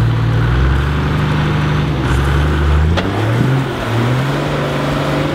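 A modified 4WD's engine working under load as the vehicle crawls up a rock step, its revs holding, then dipping and climbing again partway through. There is one sharp knock about three seconds in.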